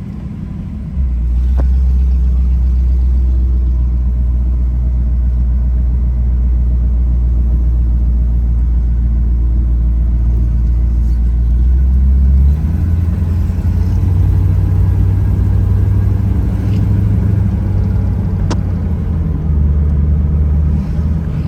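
1956 Ford Crown Victoria's Thunderbird V8 running as the car is driven: a loud, steady low rumble that begins about a second in and steps up in pitch about halfway through as the engine speed rises. A couple of brief clicks are also heard.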